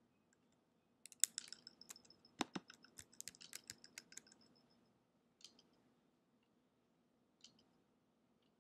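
Faint clicking of a computer mouse while mesh faces are being selected: a quick run of clicks lasting about three and a half seconds, then two single clicks.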